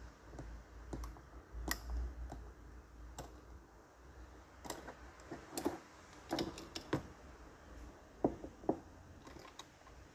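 Irregular small clicks and taps of a die-cast toy car and a soldering iron being handled on a workbench mat as the car's riveted base is pried at. A faint low hum runs underneath.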